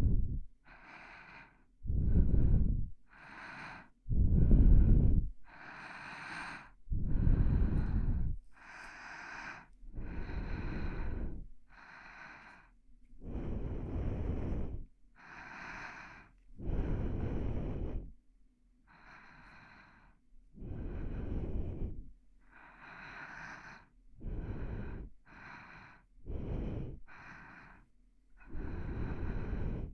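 Close-miked human breathing for ASMR, slow and steady. Louder, lower breaths alternate with softer, hissier ones, about one full breath in and out every two to three seconds.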